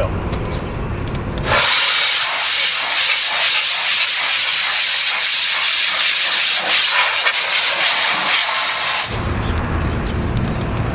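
Compressed-air blowgun blasting air through an air conditioner's condenser coil to clear debris. It makes a loud, steady hiss that starts suddenly about a second and a half in and cuts off sharply near the end.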